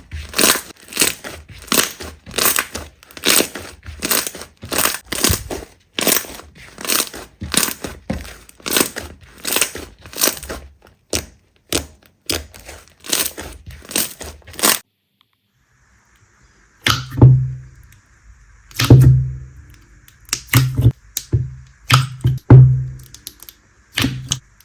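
Slime being squeezed and pressed by hand, giving rapid crackling pops several times a second. After a brief silence about fifteen seconds in, there are sparser, louder pops with deep thuds.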